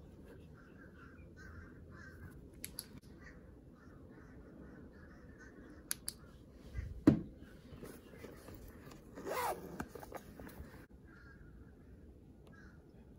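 Hands handling a vintage Coach leather handbag: faint rustling and creasing of the leather as it is opened and turned, a sharp knock about seven seconds in, and a scraping rustle a couple of seconds later.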